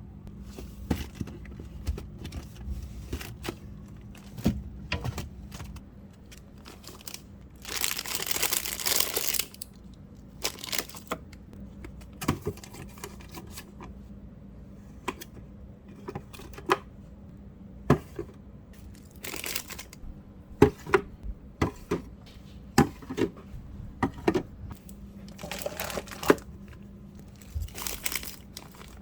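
Clatter and knocks of containers and shelves being handled while a refrigerator is cleared out, broken by a few longer rustling bursts, over a steady low hum.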